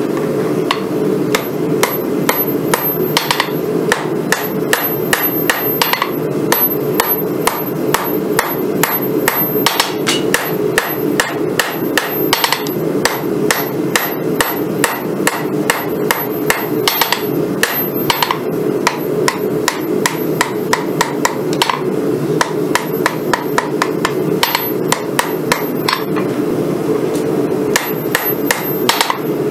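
Hand hammer striking a red-hot San Mai Damascus knife billet on a steel anvil, a quick run of blows at about two to three a second with a couple of short pauses, over a steady background roar.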